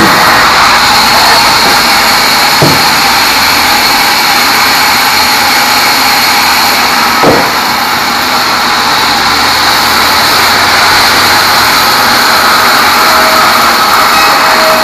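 Sawmill band saw running loud and steady while sawing small teak logs, with a knock about two and a half seconds in and another about seven seconds in.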